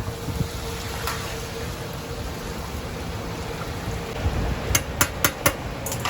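Hot oil sizzling steadily in a street-stall fryer, with four sharp clicks of utensils about five seconds in.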